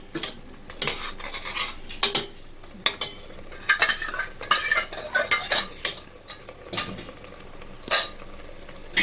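A spoon stirring and scraping in a pan of frying masala with ground tomato just added: irregular clinks and scrapes against the pan over a faint sizzle.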